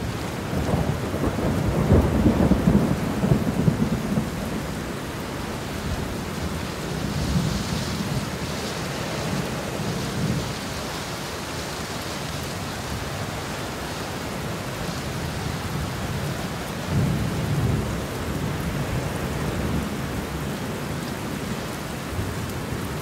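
Monsoon rain falling steadily on garden foliage, with low rumbles of thunder, the loudest about two seconds in and another around seventeen seconds in.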